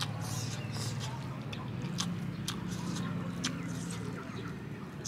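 Close-up eating sounds of a person eating rice and curry by hand: chewing with wet lip smacks and short sharp clicks every second or so. A steady low hum runs underneath and fades near the end.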